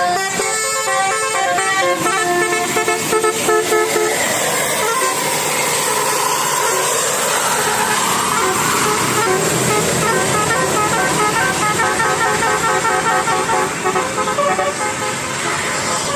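A Basuri bus's telolet horn, a set of tuned horns sounded in turn, playing quick stepped tunes. About four seconds in the tune gives way to a rushing noise, and a fast run of repeated short notes follows.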